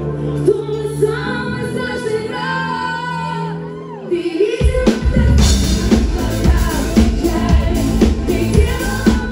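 Female pop singer singing live with a band: a soft passage of held chords under her sung melody, then about four and a half seconds in the full band comes in with a beat and the music gets louder while she keeps singing.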